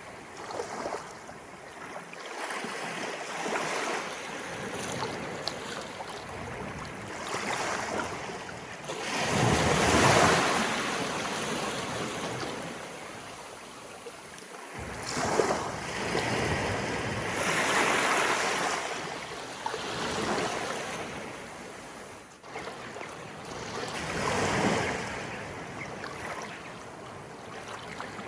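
Sea waves of an incoming tide rolling in and breaking, surging and splashing in repeated swells every few seconds, the largest about ten seconds in.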